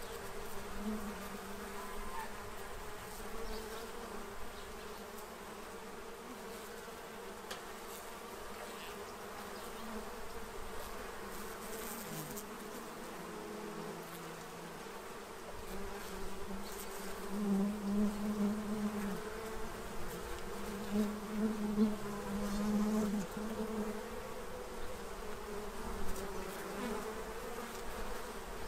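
Many honey bees, with a few wasps among them, buzzing around a feeder tray: a steady hum of wings. It swells louder a couple of times past the middle as bees fly close by.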